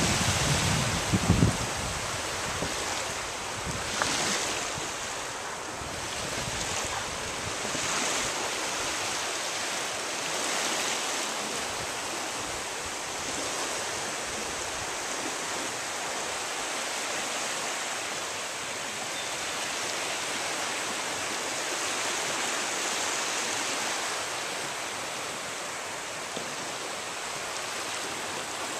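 Waves washing onto the shore in a steady rush that swells and eases every few seconds.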